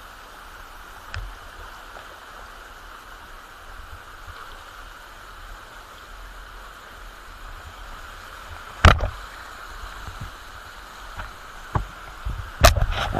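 Steady rushing of a waterfall, broken by a few sharp thumps: one about two-thirds of the way through and a cluster near the end.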